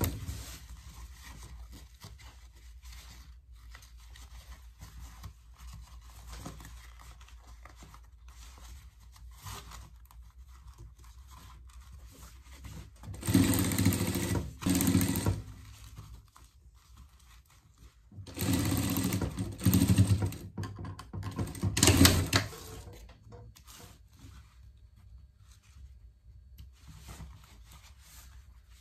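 Industrial sewing machine stitching fabric in short runs: a brief run at the start, another about halfway through, and a longer stretch of several quick runs a few seconds later, with the machine stopped and only faint handling of fabric in between.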